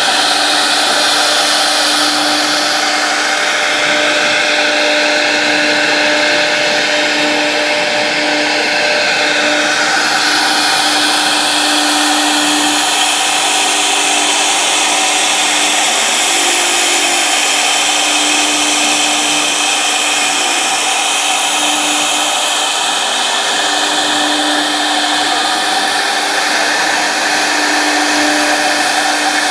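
The spindle of a 1325 CNC router running steadily, a constant hum under a dense machine hiss whose pitch bands shift slowly as it works.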